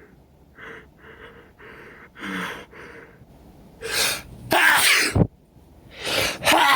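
A person with a congested head cold sneezing. A few short breaths come first. Then a rising gasp leads into a loud sneeze about four and a half seconds in, and a second gasp and sneeze follow near the end.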